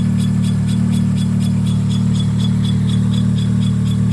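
Chevrolet Celta's engine running steadily while a front wheel turns, with a regular light scraping tick about five times a second. This is the brake pad catching on the disc, which the owner puts down to a brake caliper that is not retracting.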